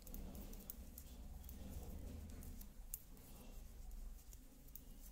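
Faint, scattered clicks and scraping of knitting needles working wool yarn into stitches, over a low steady hum.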